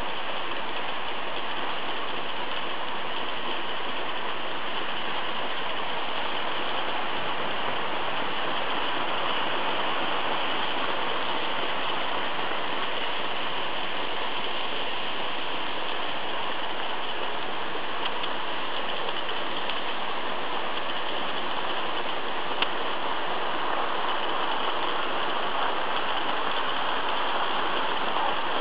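Märklin model trains running on the layout's track: a steady rushing, whirring noise of wheels and motors that swells slightly near the end as coaches pass close by.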